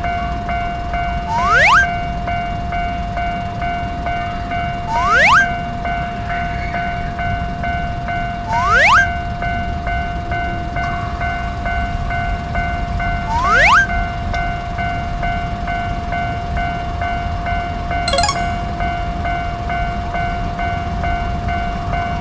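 Japanese railway level crossing alarm ringing steadily, with a loud rising whistle-like swoop four times, every three to four seconds, and a brief rattling burst near the end.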